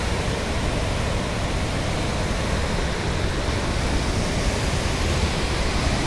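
Steady rushing of a fast, flood-swollen muddy river, an even hiss over a heavy low rumble.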